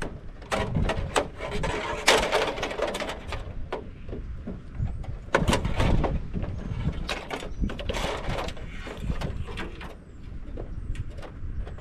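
Light-fixture scrap being pulled apart and handled: repeated metal knocks and clatter, with scraping and squealing of metal on metal about two seconds in and again around the middle.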